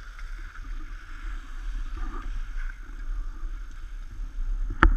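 Skis sliding and scraping over packed snow, a steady rushing hiss, with wind rumbling on the camera microphone. A sharp knock right at the end.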